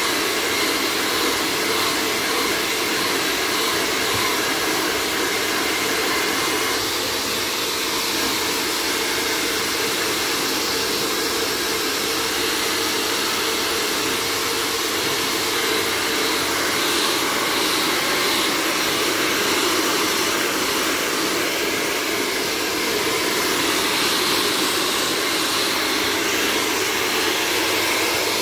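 Blow dryer running steadily, blowing air through a freshly bathed dog's wet long coat.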